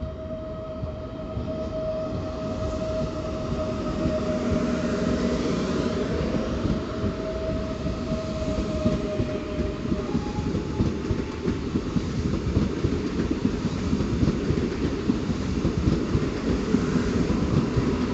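PKP Intercity PESA Dart electric multiple unit passing close along the platform: a steady rumble of wheels on rails that grows louder as the cars go by, with a steady electric whine that steps up in pitch about halfway through.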